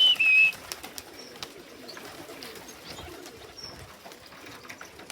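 A short, loud whistle at the very start, about half a second long and dropping slightly in pitch partway through, typical of a pigeon keeper whistling his birds in. After it, only faint high chirps of small birds.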